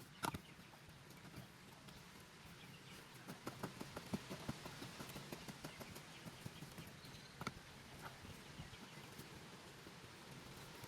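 Faint, irregular taps and clicks: a sharp one right at the start, a quick run of them in the middle, and another a little later.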